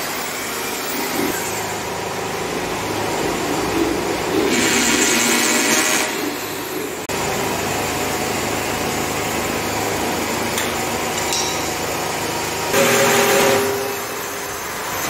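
Corded handheld electric drill running in two bursts of a second or so each, a few seconds in and again near the end, drilling fixing holes for a wooden door frame.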